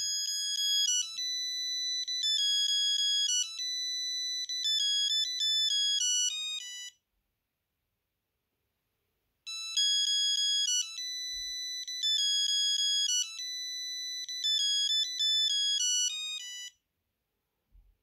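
Sony Ericsson T68i mobile phone ringing for an incoming call: an electronic ringtone melody plays one phrase, stops for a couple of seconds, then plays the same phrase again.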